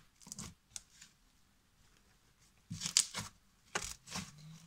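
Pale pink slime with added snow and foam beads being squeezed and pressed by hand, giving short crackly, squelchy bursts: a few soft ones at first, a pause, then louder crunchy squeezes in the second half.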